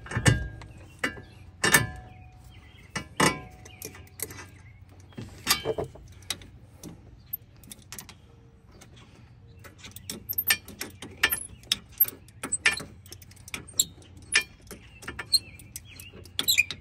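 Adjustable wrench and hand tools working the threaded outer tie rod end and its jam nut: irregular metal clicks and clinks. There are a few loud knocks in the first few seconds, a lull in the middle, then a quick run of lighter clicks near the end.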